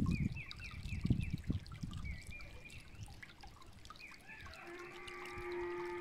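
Shallow stream trickling and gurgling over stones and plant debris, with louder gurgles in the first second and a half. Birds call over it in short repeated downward chirps, and several held notes at different pitches join in over the last second and a half.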